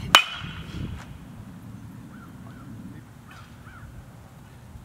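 A baseball bat strikes a pitched ball right at the start: one sharp crack with a brief ringing after it.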